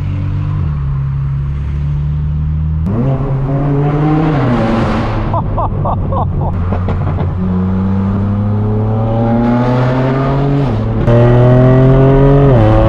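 Straight-piped BMW M4 F82's twin-turbo inline-six with an AWE Track exhaust and Stage 2 tune, heard from inside the cabin. It drones steadily for about three seconds, then the revs rise and fall with a quick run of crackles. A long climbing pull follows, then a louder stretch whose pitch falls away near the end.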